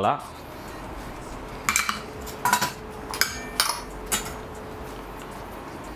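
Small stainless-steel bowls clinking as they are handled, about five light clinks with a short ring, between about two and four seconds in.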